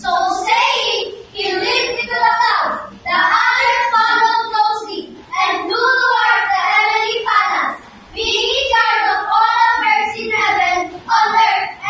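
A group of children singing together in unison, in phrases broken by short pauses.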